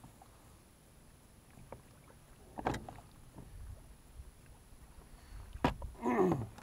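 Knocks and light rattling from handling a freshly caught small largemouth bass and a spinning rod aboard a kayak, with two sharp knocks, one about midway and one near the end. A brief falling vocal sound follows the last knock.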